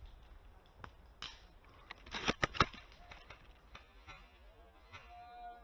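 Several sharp mechanical clicks and clacks, with a quick cluster of three or four louder ones about two seconds in, like a bolt-action spring airsoft rifle being handled. A faint steady tone starts near the end.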